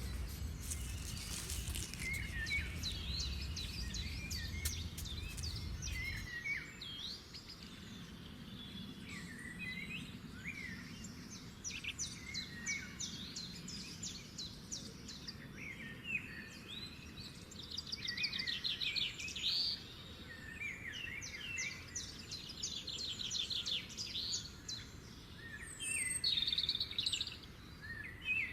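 Several songbirds chirping and singing, short calls and rapid trills overlapping. A low rumble underneath stops abruptly about six seconds in.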